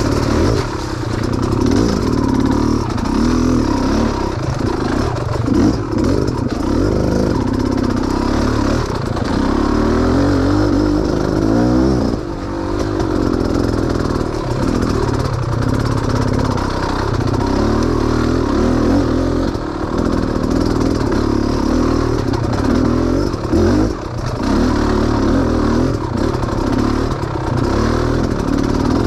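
Small off-road engine revving up and down again and again as the vehicle picks its way over a rough, rooty trail, with some rattling from the ride over the ground.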